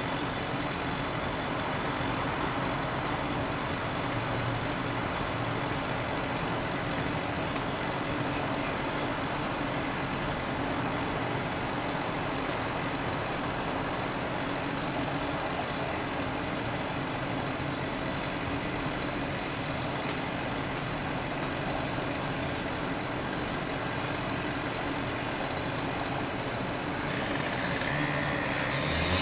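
Steady rumble of a truck engine and traffic. Near the end a harsher, higher power-saw cutting noise comes in and grows louder.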